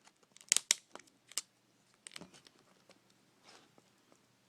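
Adhesive tape being peeled back from under a laptop's LCD screen panel: a few sharp crackles and clicks in the first two seconds, then faint scattered ticks.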